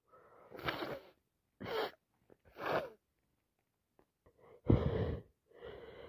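A person with a cold sniffing about five times in short bursts, the loudest a little under five seconds in: a congested, runny nose.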